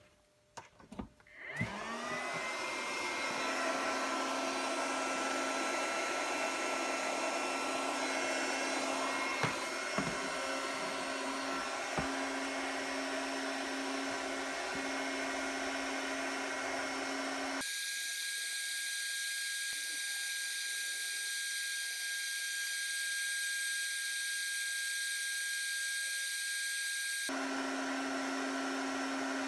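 Electric polishing tool's motor spinning up, with its pitch rising and levelling off, then running steadily with a few brief knocks as work is held to it. Two-thirds of the way through it cuts abruptly to a thinner, higher whine for several seconds, then returns to the steady hum.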